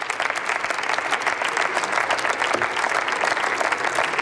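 Members of parliament applauding: many hands clapping in a dense, steady patter.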